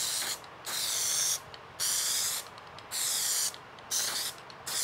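Aerosol spray adhesive hissing from a can in a run of short sprays. There are about six bursts at roughly one a second, each under a second long, with brief pauses between them.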